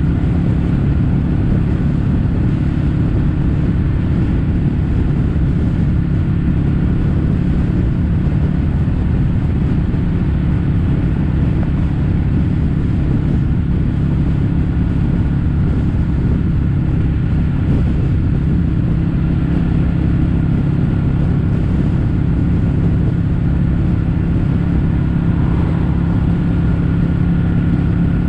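Kawasaki W800's air-cooled parallel-twin engine running at a steady cruising speed through Yamato stainless-steel Cabton-style silencers, its note held level with no gear changes or revving.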